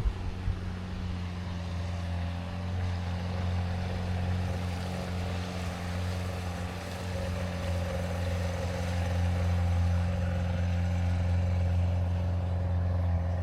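Motorboat engine running steadily as the boat passes on the river, a low even drone.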